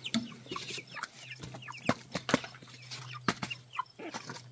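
Chickens clucking and chirping in short calls while they scramble for superworms, with scattered sharp taps.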